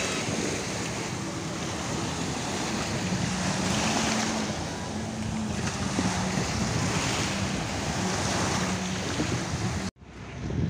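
Small waves washing up and breaking on a sandy shore, the surf swelling every couple of seconds, with wind buffeting the microphone and a faint low hum underneath. Just before the end the surf cuts off abruptly to quieter outdoor street sound.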